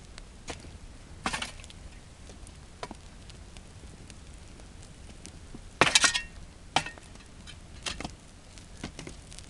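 Bonfire of a burning couch crackling, with scattered sharp pops and cracks; the loudest cluster comes about six seconds in.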